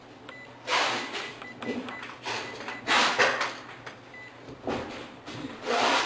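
Handling noise from hands gripping and pressing the keys of a handheld electronic calculator, in irregular short rustling bursts, the loudest about halfway through and near the end. A faint short electronic beep sounds just after the start.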